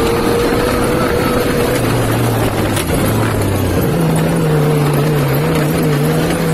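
Yamaha YXZ side-by-side's three-cylinder engine running under a steady rush of wind and driving noise, its note jumping higher about four seconds in.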